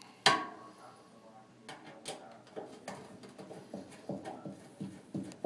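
A sharp clack of hard parts striking about a quarter second in, then a string of irregular light clicks and knocks as dryer panel parts and a tool are handled during reassembly after a door switch replacement.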